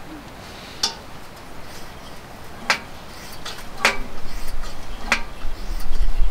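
Petromax HK500 kerosene pressure lantern being lit, its preheater flame burning while it struggles to catch. Four sharp metallic clicks come from the lantern being handled, and a hiss builds up in the second half.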